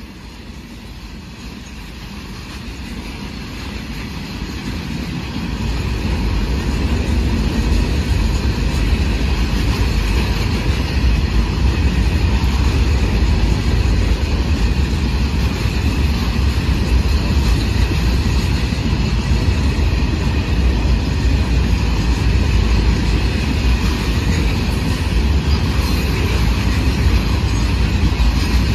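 Freight train wagons rolling past: a steady rumble and clatter of steel wheels on the rails. It grows louder over the first six seconds, as the container flat wagons give way to open-top box wagons, then holds steady.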